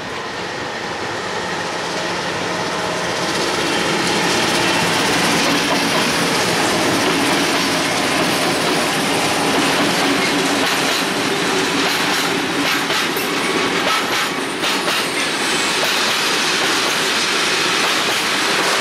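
MLW diesel locomotive approaching and passing close, its sound growing louder over the first few seconds. Then a long freight train of loaded open wagons rolls steadily past, with wheels clacking over the rail joints in clusters of sharp clicks.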